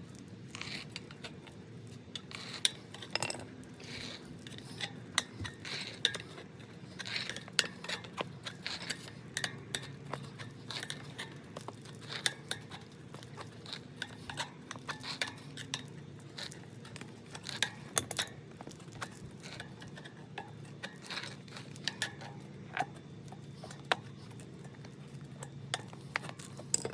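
Bicycle tire bead being worked back over the metal rim by hand: a long run of irregular sharp clicks and snaps as the rubber slips over the rim edge.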